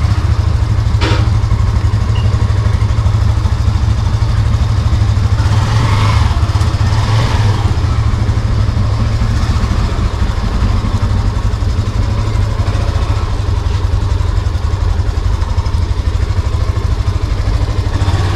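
Yamaha FZS V3 motorcycle's single-cylinder engine running steadily at idle while the bike creeps along at walking pace, with a single sharp click about a second in.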